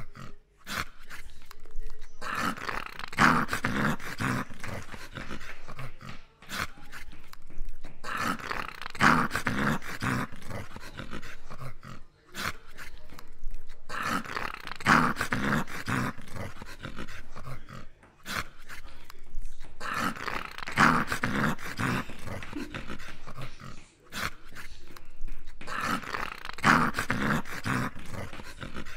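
English cocker spaniel growling: five long, low, rough growls of about three seconds each, coming about every six seconds with quieter breathing in between.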